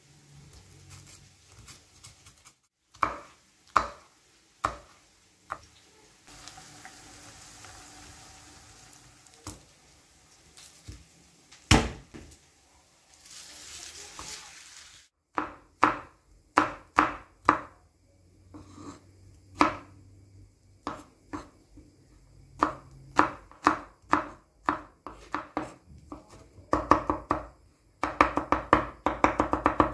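Kitchen knife chopping on a wooden cutting board: separate strokes slicing chili pepper and garlic, with one louder knock midway, then fast, rapid strokes mincing garlic near the end. Between strokes, a soft papery rustle as garlic cloves are peeled.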